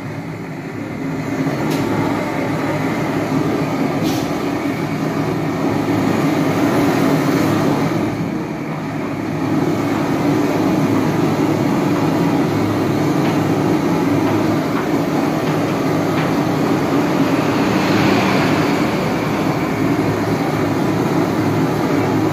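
Long-wand gas torch burning steadily with a continuous rushing flame noise as it heats the rim of an alloy wheel, briefly quieter about eight seconds in.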